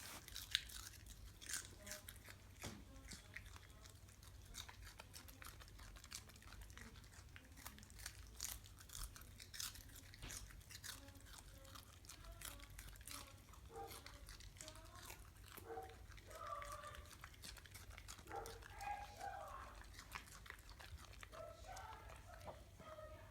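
Schnauzer puppy chewing lettuce, a run of crisp crunches as she bites through the leaves.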